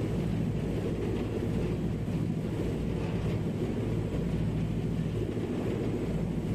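Steady low engine drone of a vessel under way, heard on board, with wind buffeting the microphone and the rush of water from the wake.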